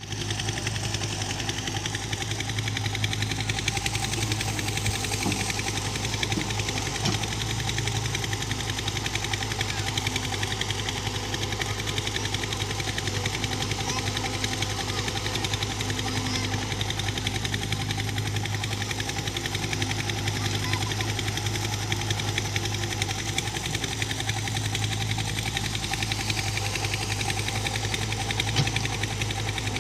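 Excavator's diesel engine running steadily, a constant low hum.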